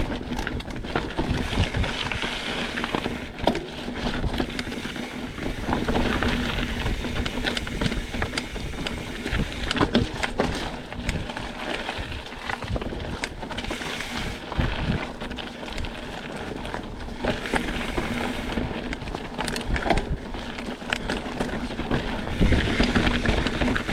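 Mountain bike riding along a wet dirt trail: steady tyre and trail noise, with frequent clicks, knocks and rattles from the bike over rough ground.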